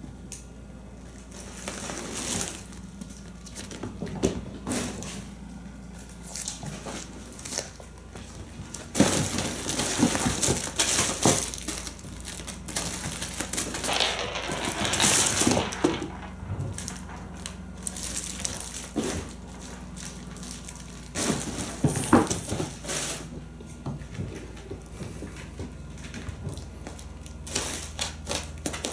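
Kittens pouncing on and scrambling in a fabric play tunnel: irregular crinkling and rustling with scattered light knocks and scrabbling paws, busiest in a longer flurry around the middle.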